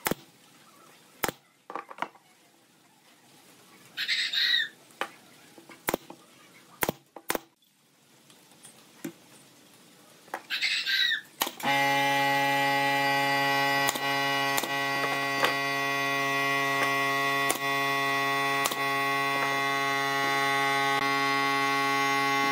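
Pneumatic brad nailer firing, sharp single clacks every second or so. About halfway through, a steady machine hum starts abruptly and becomes the loudest sound: the air compressor feeding the nailer kicking in to refill its tank.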